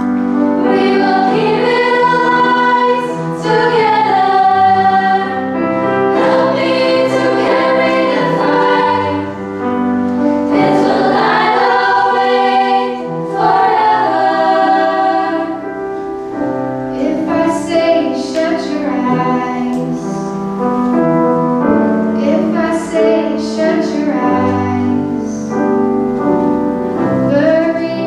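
A girls' choir singing a slow pop song in harmony, accompanied on grand piano.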